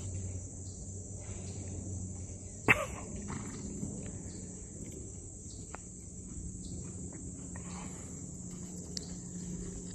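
A steady, high insect chorus, with faint hoofbeats of a horse on arena sand and one sharp knock a little under three seconds in.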